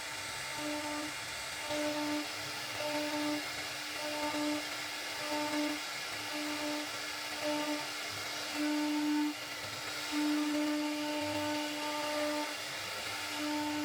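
CNC router spindle whining at a steady pitch as it cuts wood, swelling in short pulses about once a second and then in longer stretches as the bit bites, over a constant machine hiss.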